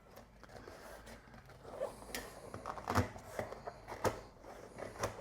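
Rubbing and scattered sharp clicks from a 20-inch bicycle tire being worked back onto its rim by hand, the bead pushed over the rim edge with the thumbs. The clearest clicks come about two, three and four seconds in.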